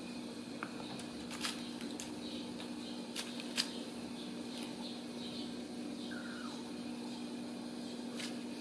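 A steady low hum, with a few sharp clicks scattered through and a faint short falling mew from a Ragdoll kitten about six seconds in.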